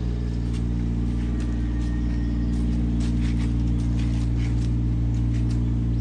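Steady low mechanical hum, like a motor or engine running, with a few faint clicks over it.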